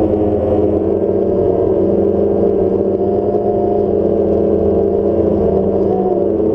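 Multirotor drone's motors and propellers humming steadily, a layered whine whose pitches drift slightly as the motors adjust, shifting a little near the end.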